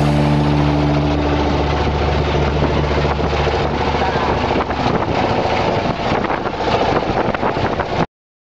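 A small boat's engine running steadily at sea, with wind and water noise, under music that dies away in the first two seconds; all sound cuts off suddenly near the end.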